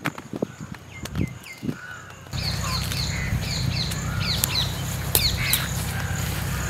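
Light clicks of small karonda fruits dropping onto a pile in a bamboo basket for about two seconds. Then outdoor ambience: birds calling again and again over a steady low hum.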